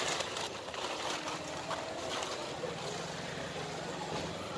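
Steady motor-traffic rumble of a busy street, with a few short knocks and rustles as fish and a plastic sack are handled on a tarp.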